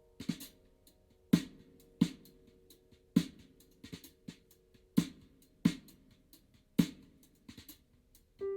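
Recorded jazz music played back through a car audio system: a sparse drum passage of sharp hits, the loudest coming about every two-thirds of a second, with a held piano note dying away at the start and a new chord sounding near the end.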